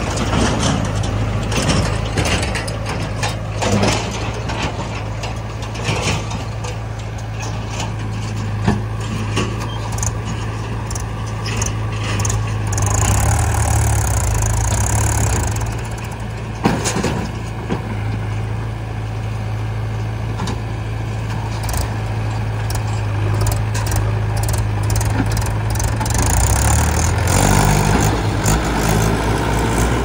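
Diesel engines of a JCB 3DX backhoe loader and a Mahindra 475 DI tractor running steadily with a low hum, with scattered knocks and rattles as mud is loaded into the tractor's trolley. A brief hiss comes around the middle, and the engine note shifts up a couple of seconds before the end.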